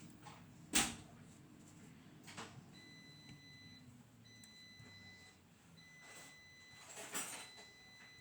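Lock picks working the pins of a Goal P lock: faint metal scraping with a sharp click about a second in, a lighter click around two and a half seconds, and a short run of clicks near the end.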